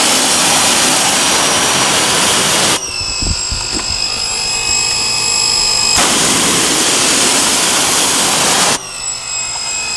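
Pressure washer rinsing a car's alloy wheel and tyre in two long bursts of hissing spray, about three seconds each. A steady high-pitched whine comes through in the pause between them and again near the end. The spray is washing off brake dust loosened by a soaked-in wheel cleaner.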